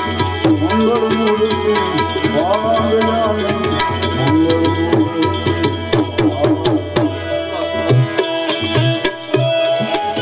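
Live devotional bhajan music: tabla plays a steady rhythm under wavering, gliding melodic instrumental lines.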